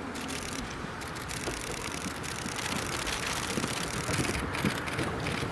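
Diesel engine of a JR Hokkaido KiHa 54 railcar running steadily, its low rumble growing louder near the end.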